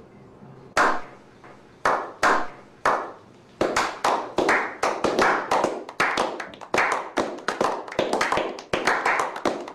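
A slow clap by a small group: a few single hand claps spaced about a second apart, then more hands join and the clapping quickens into dense applause.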